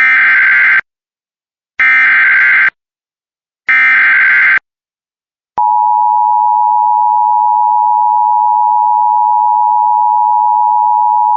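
Emergency Alert System header for a severe thunderstorm warning. Three short bursts of data tones come about two seconds apart, then about five and a half seconds in the steady two-tone EAS attention signal starts and holds.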